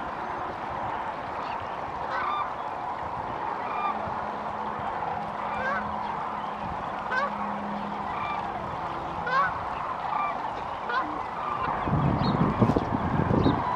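A large flock of sandhill cranes calling together: a dense chorus of many overlapping calls, with single calls standing out every second or so. Near the end a low rumbling noise comes in under the calls.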